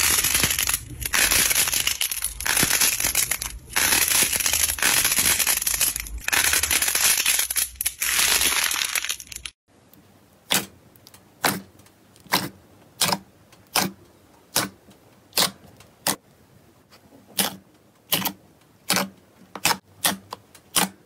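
Dense, loud crackling from a glossy ball of slime being squeezed in the fingers, breaking off abruptly about nine and a half seconds in. Then a hand pressing into thick slime gives about fifteen sharp sticky pops, one every three quarters of a second or so.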